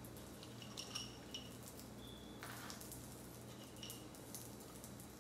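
Faint, scattered soft clicks and taps as toothpicks are handled and pushed into a pressed sandwich in a frying pan, over a steady low hum.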